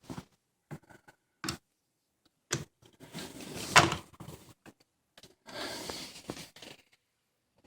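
Handling noises: a few sharp clicks and knocks, with two short stretches of rubbing or scraping, one of them ending in a louder knock.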